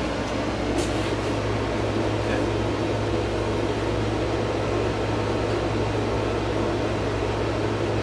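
Steady low hum with an even hiss, the constant background drone of a running machine such as an air conditioner. A faint click about a second in.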